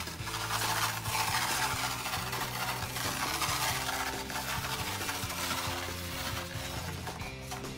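Crushed mirror glass pouring from a plastic bag onto a canvas, a dry, crackling hiss of glass fragments that fades near the end. Soft background music plays underneath.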